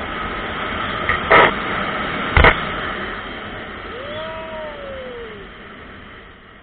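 Riding noise from a moving motorcycle: steady wind rush and engine noise, with two sharp knocks about a second apart a second or so in, then a short tone that rises and falls. The noise fades over the last few seconds.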